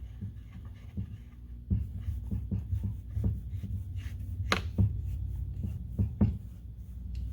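Scattered sharp clicks and knocks of air fittings and tool parts being handled, over a steady low hum; two louder knocks come past the middle.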